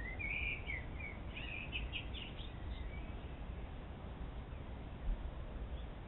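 A songbird chirping a quick run of short call notes for the first three seconds or so, over a steady low background rumble; a single low thump about five seconds in.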